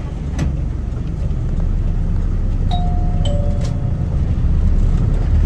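Bus stop-request chime (J21 type) sounding once about two and a half seconds in: a two-note ding-dong, a higher note stepping down to a lower one and ringing on for about a second, signalling that a passenger has asked to get off. Underneath runs the steady rumble of the bus's engine and road noise, with a few sharp rattling clicks.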